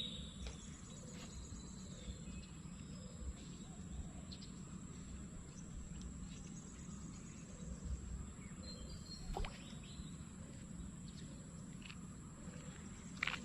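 Steady outdoor background noise with a few faint bird chirps, the clearest about nine seconds in, and a sharp click near the end.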